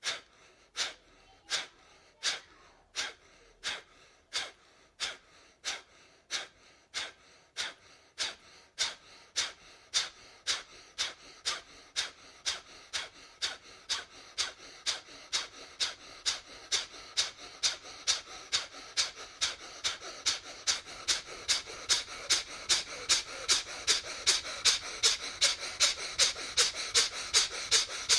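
A man's forceful, rhythmic breaths through the nose in Sudarshan Kriya bellows breathing, each a short sharp rush of air. They start at a little over one a second and speed up to about two and a half a second, growing louder.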